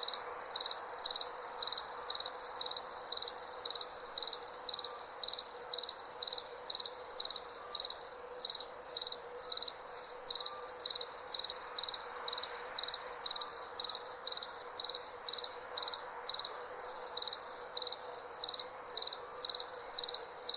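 A cricket chirping steadily, about two short chirps a second, each a high pulsing trill, over a faint background hiss.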